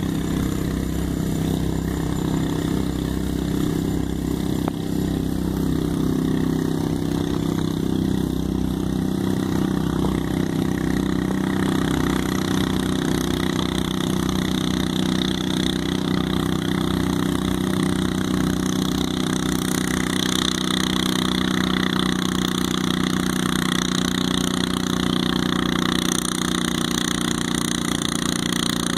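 Small garden tractor engine running steadily under heavy load as it drags a weight-transfer pulling sled, the pitch holding fairly even throughout.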